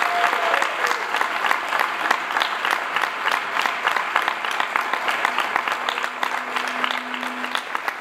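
Audience applauding: dense, steady clapping from a seated crowd that eases off slightly near the end.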